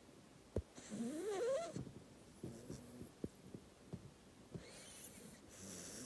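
Black Labrador puppy snoring in its sleep: two noisy breaths about four seconds apart. The first carries a wavering, rising whistle-like tone, and there are a few soft clicks in between.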